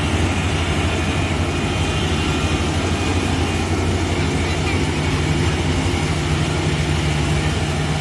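Kubota rice combine harvester running steadily at work, its diesel engine a constant low note with machinery noise over it.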